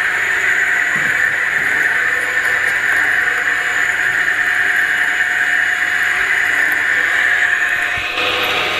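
Electric juicer's motor running with a loud, steady whine while clementine pieces are pushed down its feed chute and juiced.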